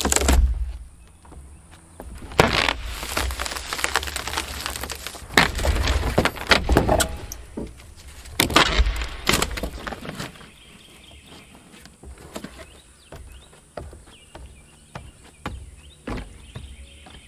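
Old plywood roof decking and roll roofing being pried and torn off wooden rafters: loud cracking and splintering of wood as stubborn nails pull free, in several bursts over the first ten seconds, then fainter scattered knocks.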